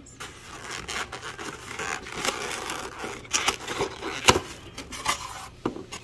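Styrofoam takeout clamshell being handled, unlatched and opened by hand: foam scraping and rubbing with scattered sharp clicks, the loudest a little over four seconds in.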